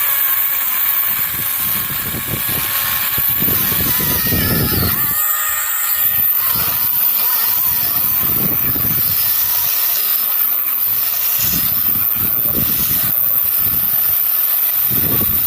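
Battery-powered electric chainsaw running steadily while cutting into wood, making the horizontal first cut of a felling notch.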